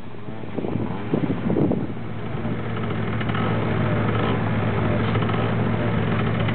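Bugatti Veyron's quad-turbocharged W16 engine idling with a steady low hum that grows slightly louder about two seconds in.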